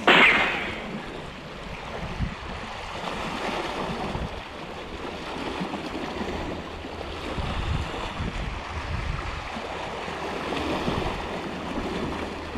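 Sea waves washing against a rocky shoreline. A loud splash of a wave breaking on the rock comes right at the start, followed by a steady wash of surf.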